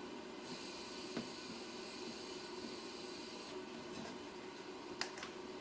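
Faint handling and rubbing of insulated wires as neutral wires are twisted together under a wire nut, with a couple of small clicks. A steady hiss sits underneath and stops abruptly about three and a half seconds in.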